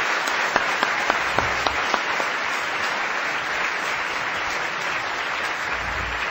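Audience applauding, a steady even clapping with a few sharper single claps standing out in the first two seconds.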